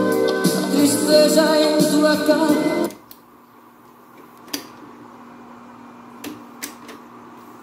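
Music playing from a cassette on an Akai GX-M10 tape deck stops abruptly about three seconds in. A faint steady hum remains, with three sharp clicks from the deck's transport keys.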